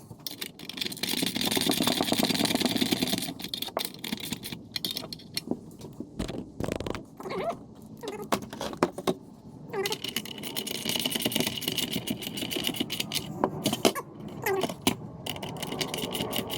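Metal seat-adapter parts being handled and fitted: spacers clinking and scraping in steel box tube, with two longer stretches of rapid scraping and rattling and many sharp clicks between them.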